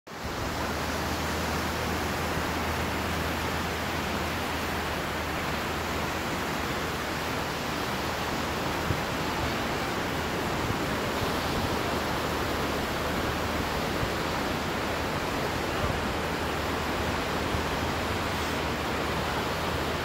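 Steady, even rush of ocean surf and wind.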